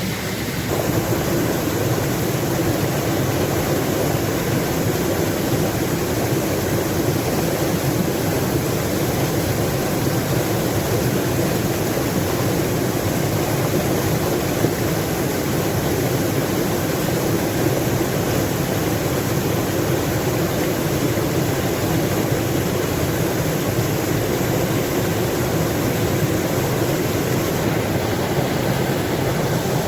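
Steady rush of flowing water, a stream or small waterfall, with an even hiss and no pauses; it gets slightly louder about a second in.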